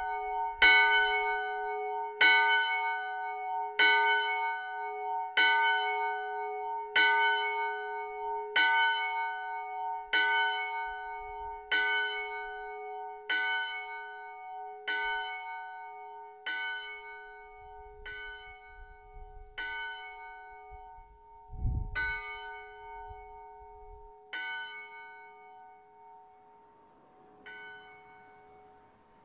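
80 kg bronze church bell cast by Miklós Gombos in 2006, swung by an electric drive and struck by its clapper about every second and a half, a steady hum ringing on between strokes. The swing is dying down: the strokes get gradually weaker, and the last few are faint and uneven. A single dull thump comes about three-quarters of the way through.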